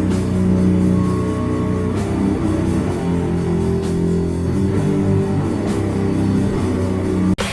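Live death metal band playing: distorted electric guitars hold low chords over drums. The music cuts off suddenly near the end.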